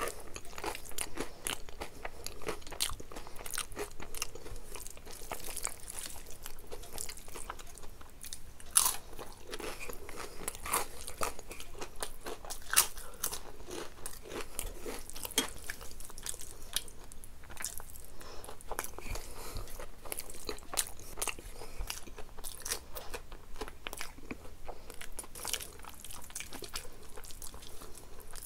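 A person biting and chewing crisp, crunchy food, with many irregular sharp crunches one after another.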